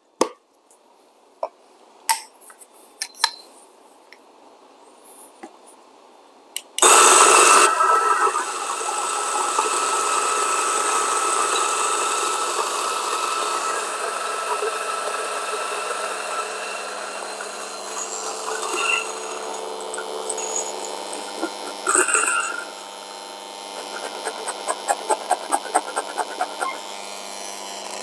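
DF64 single-dose flat-burr coffee grinder switching on suddenly and grinding an 18-gram dose of espresso beans, running steadily for about fifteen seconds. It then drops to a lighter sound with quick, regular ticks as the burrs run nearly empty. Before it starts there are a few faint clicks of handling.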